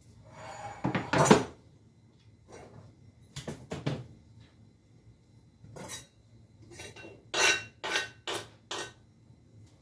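Kitchen clatter as a cutting board and utensils are moved and set down: a string of knocks and clinks, a loud knock about a second in, and a quick run of ringing metal clinks near the end.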